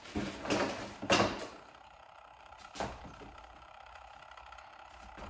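Handling and rummaging noises while fetching a AA battery: a few scraping, rustling sounds over the first second and a half, then a single sharp click near three seconds in.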